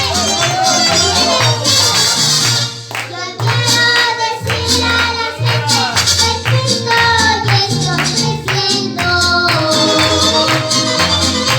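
Music: a song with a singing voice over a bass line and steady percussion.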